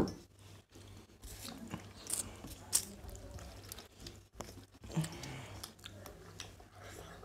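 Two people eating rice with their hands off steel plates: chewing, with soft squelches and small clicks as fingers mix rice and dal against the metal. A single thump at the very start, over a steady low hum.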